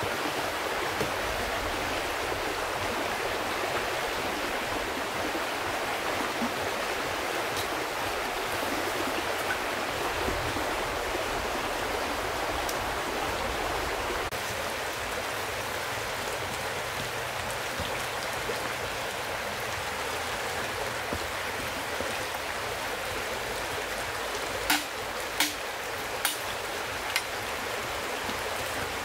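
Steady rushing of a flowing stream, with four sharp knocks about a second apart near the end.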